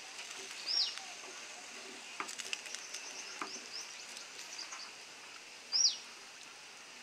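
A wooden spatula stirs chicken pieces in watery gravy in a nonstick pan, with light scrapes and clicks over a faint sizzling hiss. A bird gives a short, sharp falling chirp twice, about a second in and again near the end, louder than the stirring.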